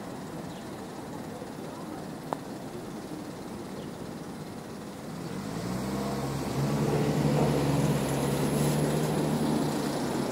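Street traffic ambience with a single sharp click about two seconds in; about halfway through, a motor vehicle's engine rises in pitch and then holds a steady hum as the loudest sound.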